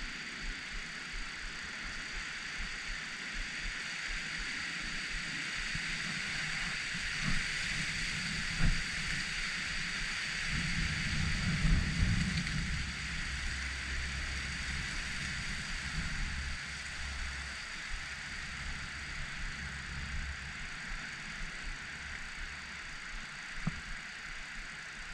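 Wind gusting across the microphone: irregular low rumbling buffets, heaviest about halfway through, over a steady hiss.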